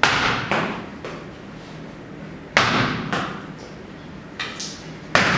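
A ball thrown hard against a wall, hitting with a loud smack about every two and a half seconds, each hit followed by a softer bounce off the floor. The hits echo in a bare room.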